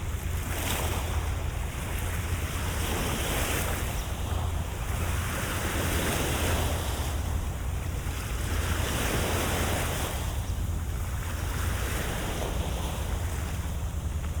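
Waves washing in, a noisy rush that swells and falls back every few seconds, over a steady low wind rumble on the microphone.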